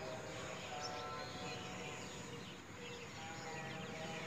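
Birds chirping and calling, many short chirps overlapping with a few longer held notes.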